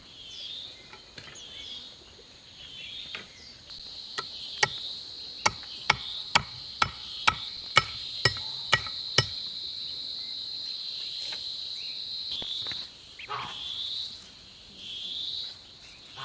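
A quick run of about eleven sharp knocks, roughly two a second, like a hand tool striking, over a steady high insect drone that stops about three quarters of the way through. Short repeated chirping calls come at the start and near the end.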